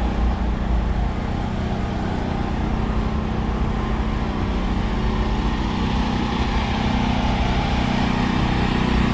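Hot rod engine running steadily at a constant speed, a low even engine note with no revving.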